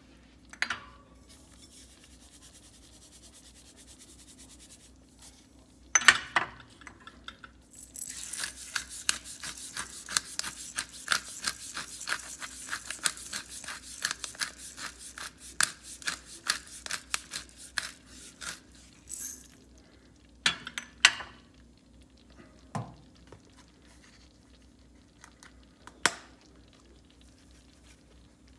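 Hand-twisted pepper mill grinding black pepper: a rapid, dense crackling rasp lasting about ten seconds, starting about eight seconds in. A few single knocks of a utensil against the pot come before and after it.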